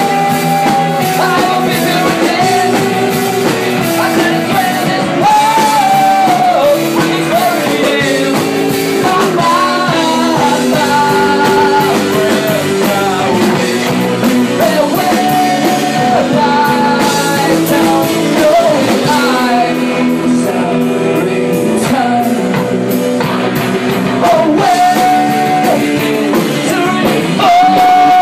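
Loud rock band music played live, with a drum kit and a melody line over the band.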